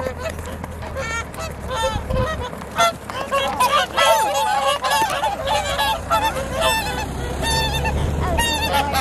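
A flock of whooper swans calling: many short, honking calls overlapping one another, with a steady low rumble underneath.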